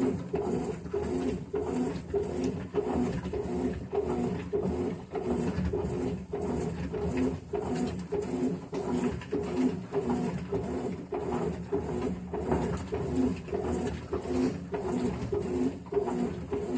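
Whirlpool CWH12BB top-load washing machine agitating, the agitator swishing back and forth in an even rhythm of about two strokes a second with a pulsing motor hum. This is its normal agitation cycle.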